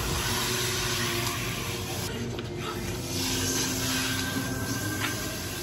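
Water spraying from a salon basin's handheld shower head onto hair and into the sink, a steady hiss as the hair is rinsed.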